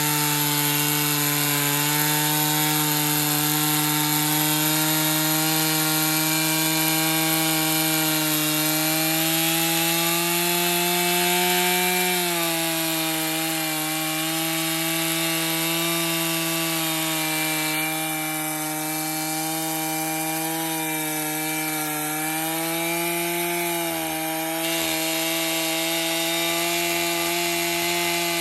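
Stihl MS 461 two-stroke chainsaw running under load, ripping along a log in a vertical mini-mill. Its pitch holds steady with small sags where the cut loads it, about 12 seconds in and again near 24 seconds.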